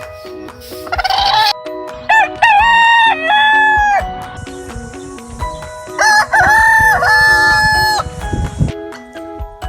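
Rooster crowing twice, each cock-a-doodle-doo about two seconds long, with a rising start and a long held note.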